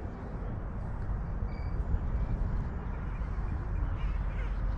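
Wind rumbling and buffeting on the microphone outdoors, an uneven low rushing noise.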